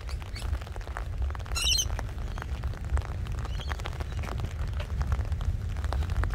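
Wind buffeting the microphone in a steady low rumble, with a bird's short warbling call about one and a half seconds in.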